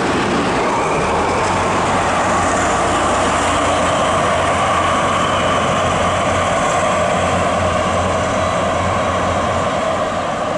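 Double-headed DB Class 218 diesel-hydraulic locomotives running, a steady loud engine drone that begins to fade near the end.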